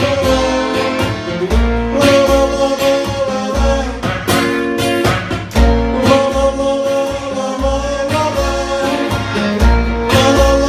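Song playing: a sung melody with long held notes over guitar and repeated deep bass notes.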